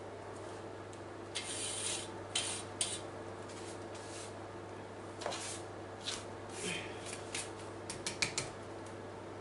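Window glass being scrubbed by hand with a wet cleaning pad and soapy water: a run of short, irregular rubbing strokes starting about a second and a half in, over a faint steady low hum.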